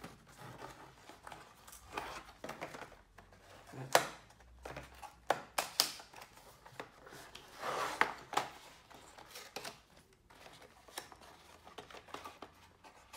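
A cardboard product box handled and opened on a wooden desk: a sharp knock of the box on the desk about four seconds in, more clicks just after, and a paper seal sticker peeled off with a short rasping tear about eight seconds in, among light rustles of cardboard.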